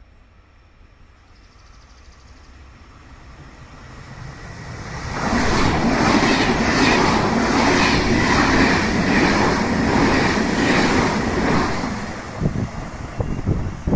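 A Frecciarossa high-speed electric train approaches and passes close by. The rush of wheels on rail grows over the first few seconds, then runs loud with a regular beat from the bogies passing. It eases near the end into gusty wind buffeting on the microphone.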